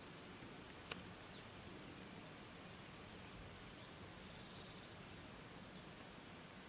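Quiet background hiss with a few faint, short high bird chirps falling in pitch, and a single sharp tick about a second in.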